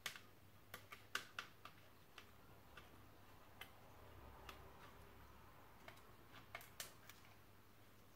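Faint, irregular clicks and ticks of fingers on a clear plastic Pinlock lens as its protective film is worked loose at the edge, sharpest about a second in and again near the end.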